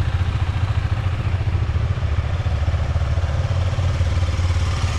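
Motorcycle engine running at idle with a steady, fast low throb.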